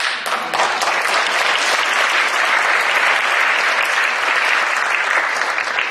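An audience applauding: a large crowd clapping that breaks out all at once and holds steady and loud.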